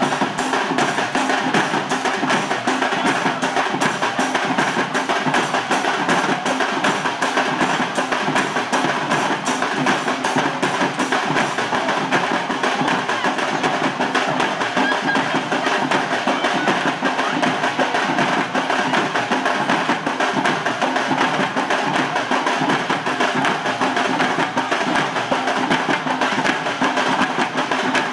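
Tamil temple drums beaten in a fast, unbroken rhythm of sharp, dense strikes, with a steady sustained tone underneath.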